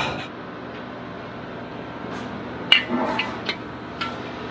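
Small metal clinks and clicks from handling a refrigerant cylinder and its brass hose fittings: a quiet stretch, then about five sharp clinks in the second half over a low steady background noise.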